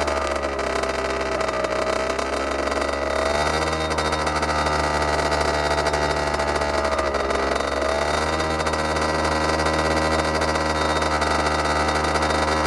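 Derbi Senda DRD 50 cc two-stroke single-cylinder engine with an open aftermarket sport exhaust, idling loudly with the bike standing still. Its idle speed sags twice and recovers, about a second in and again past the middle.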